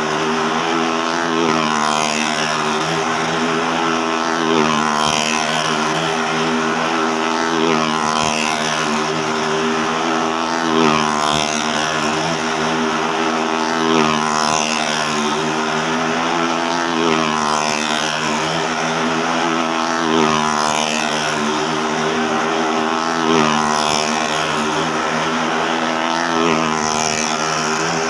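Motorcycle engine running at steady high revs as it circles inside a wooden well-of-death drum. Its pitch and loudness swell and fall about every three seconds as it laps past.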